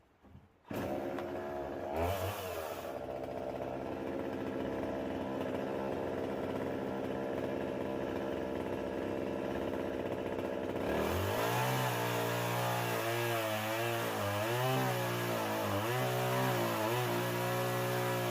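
16-inch Husqvarna chainsaw coming on about a second in, revving briefly, then running steadily at low speed. About eleven seconds in it goes to high revs, the pitch dipping again and again as the bar is pushed through a pine log on a homemade Alaskan chainsaw mill, a load the owner finds a little much for the saw.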